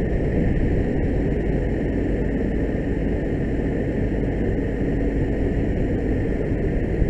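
Steady low rumble of a fire engine's diesel engine running, with a faint steady high tone above it.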